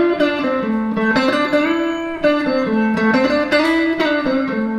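Stratocaster-style electric guitar playing single notes in a string-bending exercise. It alternates a fretted note with a full-step bend up to the same pitch, so several notes slide up or down in pitch, about two notes a second.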